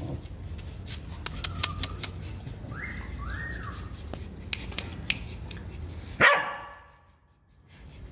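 Beagle puppies vocalising: two short high whimpers, each rising and falling, about three seconds in, then one loud yap about six seconds in.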